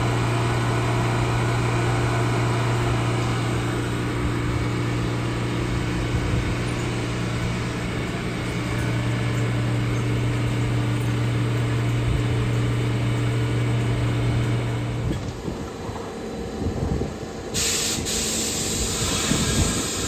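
A New York City subway train standing at the platform, giving off a steady low hum that cuts out about three quarters of the way through. Near the end a loud hiss of air starts and keeps going.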